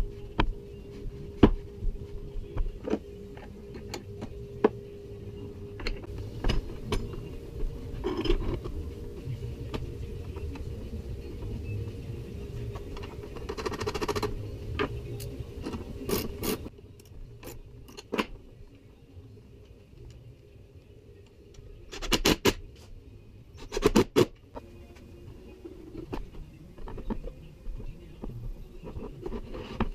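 Hand-work on metal and plywood parts: scattered clicks, knocks and scrapes as a bolt, steel plate and scissor jack are handled against a plywood frame, with a burst of louder knocks about two thirds of the way through. A steady low hum runs under the first half and returns near the end.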